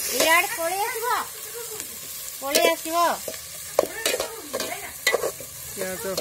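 Sliced onions frying in oil in a steel pot while a long steel spoon stirs and scrapes them: a steady sizzle, with several rising and falling squeals of metal scraping on metal and a few sharp clinks.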